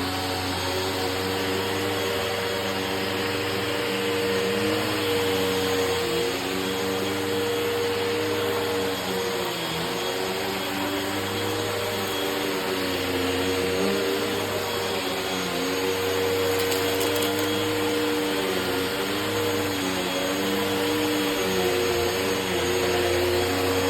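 Vacuum cleaner running continuously: a steady whine over a rush of air, with lower tones that waver up and down in pitch.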